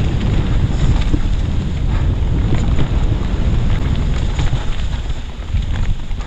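Wind buffeting the microphone over the rumble of a Norco Aurum downhill mountain bike's tyres running down a wet, muddy trail, with scattered clicks and rattles from the bike; it eases off a little near the end.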